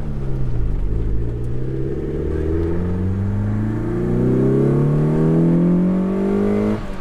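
Lotus Elan's twin-cam four-cylinder, on two Mikuni carburettors, accelerating hard: after a brief dip in pitch in the first second, the engine note climbs steadily toward about 6,500 rpm, then drops abruptly near the end as the throttle is lifted for a gear change.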